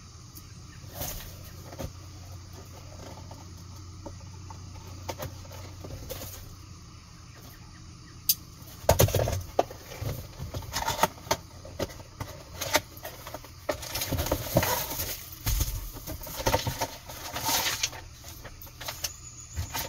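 Cardboard filter box being opened by hand. A few faint clicks come first; then, from about nine seconds in, a long stretch of irregular rustling, crinkling and tapping as the paper instructions and the plastic-wrapped filter are pulled out.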